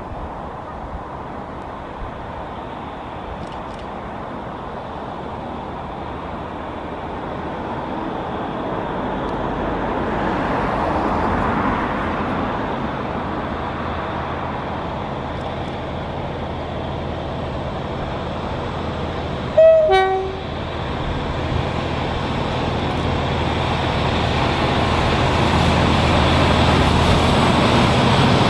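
A Class 57 diesel locomotive, with its EMD V12 engine, approaches at the head of an empty rail delivery train, its engine and wheels growing steadily louder as it nears. About twenty seconds in it gives one short two-tone horn toot, high note then low, from the driver acknowledging the lineside camera.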